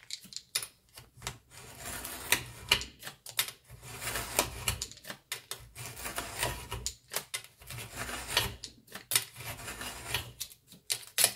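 Snap-off utility knife drawn again and again along a ruler, slicing through a stack of folded paper pages on a cutting mat: a run of short, scratchy cutting strokes.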